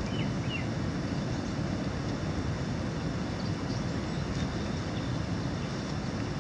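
Steady wind rumble on the microphone, even throughout, with a few faint high chirps right at the start.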